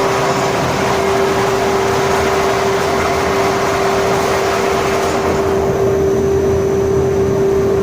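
Carpet dedusting machine running steadily: a loud, even mechanical noise with a steady hum. The higher hiss drops away about five seconds in while the hum continues.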